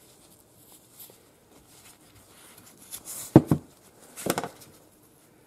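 Small handling noises from a pick tool and gloved fingers prying the old O-ring off a speedometer gear housing: faint rustling, a few sharp clicks about three and a half seconds in, and a short scrape a second later.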